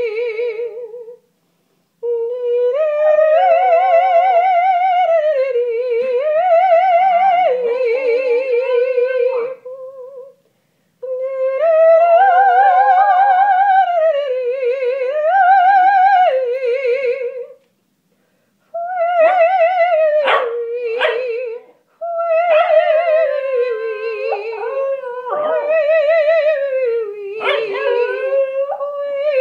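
A person sings operatic vocal warm-up phrases with strong vibrato, each a few seconds long, rising and falling in pitch, with short pauses between them. In the later part a Pembroke Welsh corgi howls and yips along with the singing.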